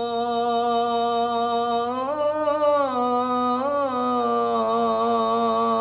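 A man's solo voice chanting the Islamic call to prayer (adhan), drawing out the final "Allah" of "Muhammadan rasulullah" as one long held note, with slow melodic turns about two seconds in and again near four seconds.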